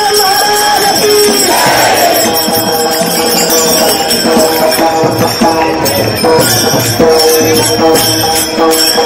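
A crowd of voices chanting a devotional song to the clash of taal hand cymbals. The cymbal strokes come in a regular beat from about halfway.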